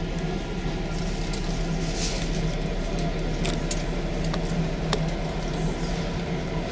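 Steady drone of a ferry's engines, a constant low hum with a few faint ticks over it.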